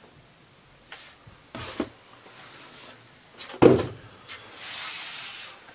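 Handling noises: a few short knocks and rustles as a cardboard box is cleared off a tabletop and a rubber gas mask is set down, the loudest knock about three and a half seconds in, followed by about a second of soft hiss.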